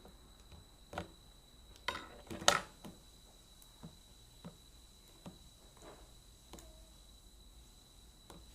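Homemade slime being handled: scattered small clicks and sticky handling noises, with a louder cluster of crackly noises about two seconds in.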